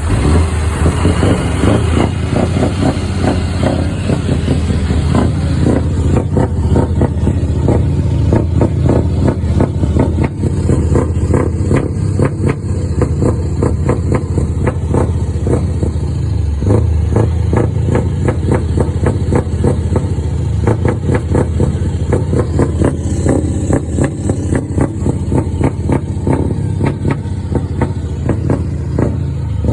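Scania V8 diesel truck engine running steadily and loudly, its low exhaust note pulsing rapidly, with no clear rise or fall in revs.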